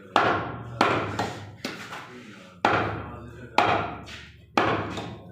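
Heavy chopping blade striking through beef in a series of hard chops, about one a second, each with a short ringing tail.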